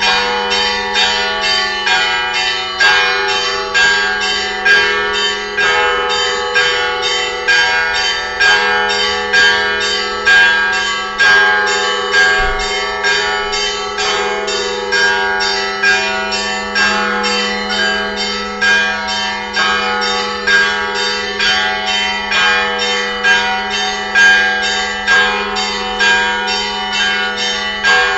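Russian Orthodox church bells rung in a festive peal after a feast-day service. Small bells chime in a quick repeating pattern, about three strikes a second, over a lower bell's tone that rings on throughout.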